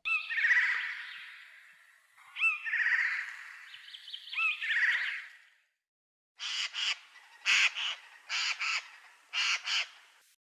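Harsh bird calls: three drawn-out calls about two seconds apart, each starting with a short upward hook. From about six seconds in comes a quick run of short squawks, mostly in pairs.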